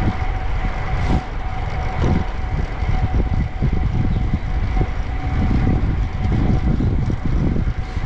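Street noise while riding a fixed-gear bike through city traffic: a steady, gusty rush of wind on the action camera's microphone, with traffic underneath.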